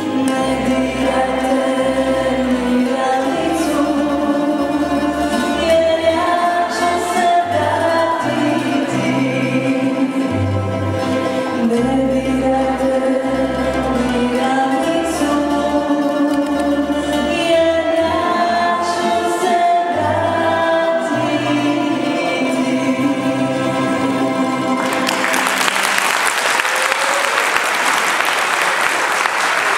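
A woman sings the closing phrases of a slow song with a tamburica orchestra of small plucked tamburicas and double bass playing sustained low notes beneath her. About 25 seconds in, the song ends and the audience breaks into applause.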